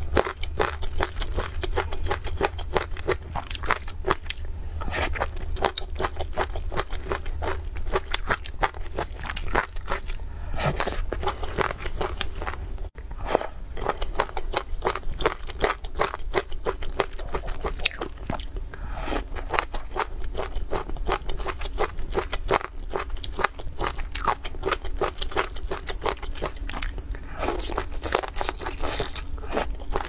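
Close-miked chewing of spicy chicken feet: continuous wet crunching, biting and smacking, with a brief break about thirteen seconds in.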